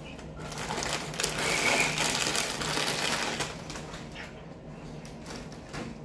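Crinkling of a plastic tortilla chip bag being handled and put aside: a dense crackle for about three seconds, then lighter scattered rustles and clicks.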